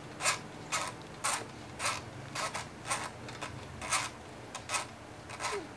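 Dial of a Legrand QT31 analog timer being turned forward by hand with a screwdriver, giving short rasping clicks at about two a second as the clock dial is advanced.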